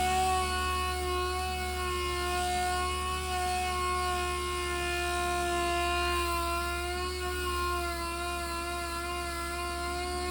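Electric sander running steadily with a high whine, wet sanding a plastic tail light lens with 800 grit; its pitch dips slightly now and then as it is pressed onto the lens.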